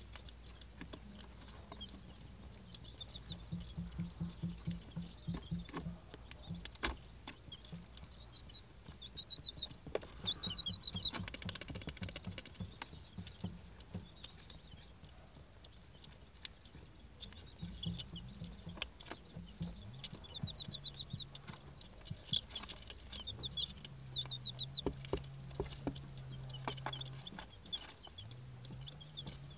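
Eight-day-old Silver Laced Wyandotte chicks peeping, a busy run of short, high chirps in quick series, with scattered light taps.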